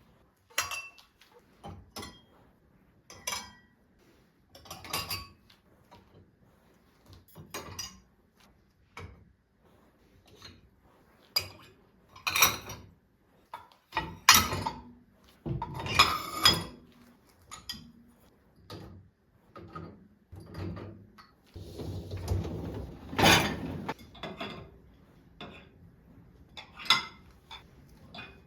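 Dishes and cutlery being handled: a string of separate clinks and knocks, with a few longer rustling or scraping stretches between them.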